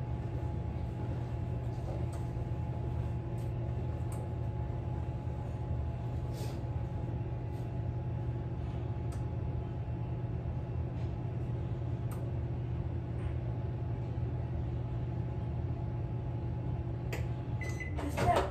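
A steady low mechanical hum, like a kitchen appliance running, fills the room, with faint scattered clicks of a spoon against a mixing bowl. Near the end comes a short louder clatter with a brief high tone.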